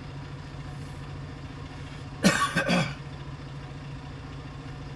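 A vehicle's engine idles steadily, heard from inside the stopped vehicle. About two seconds in, someone inside gives a short double cough.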